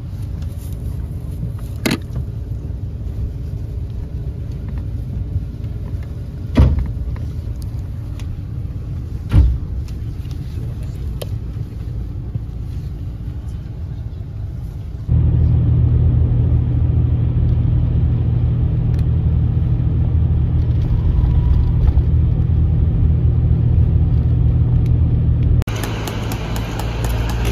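Cabin noise inside a moving highway bus: a steady low engine and road rumble with a few sharp knocks. About halfway through it jumps to a louder, deeper rumble, and near the end it gives way to a brighter hiss.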